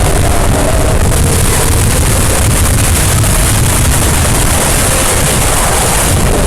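Loud, unbroken wall of distorted, heavily processed sound-effect noise, heaviest in the low end, with faint wavering tones running through it.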